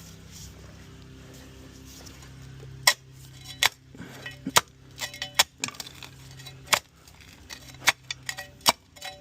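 Shovel striking and chipping into hard, tough ground: about a dozen sharp metallic clanks at an irregular pace, starting about three seconds in, over a steady low hum.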